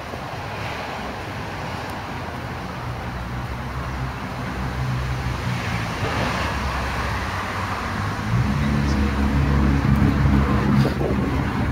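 City street traffic: motor vehicle engines running. The low rumble grows steadily louder and is heaviest from about eight seconds in.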